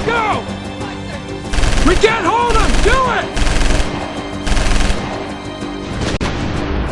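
Automatic gunfire in four short bursts of about half a second each, roughly a second apart, starting about a second and a half in, over steady background music.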